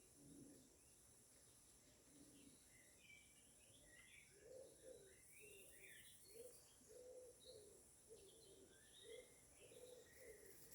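Faint birdsong: short twittering calls, joined about four seconds in by a lower note repeated over and over, all over a steady faint high hiss.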